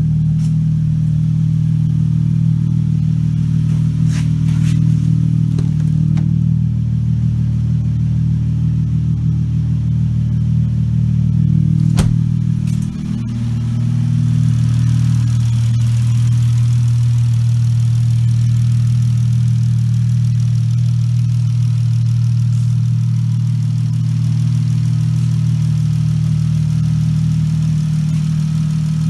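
Chrysler 300's 3.6 Pentistar V6, fitted with an aftermarket cold air intake and a free-flowing exhaust, idling steadily. About twelve seconds in there is a sharp click, and the idle settles to a slightly lower pitch.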